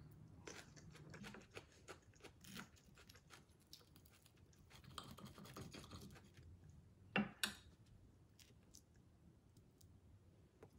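Faint scraping and light clinks of a steel knife and fork on a ceramic plate as soft rice cakes are cut, with two sharper clinks about seven seconds in.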